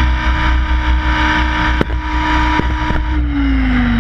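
Radio-controlled helicopter's motor and rotor heard close from its onboard camera, running at a steady pitch with a few sharp clicks about two seconds in. About three seconds in, the pitch starts falling as the rotor spins down on the ground.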